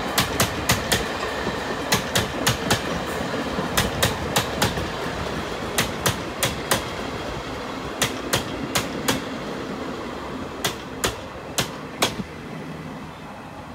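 Taiwan Railways passenger coaches rolling slowly past over a low rumble, their wheels clicking over the rail joints in quick clusters. The clusters come further apart and the sound eases as the train slows to a stop.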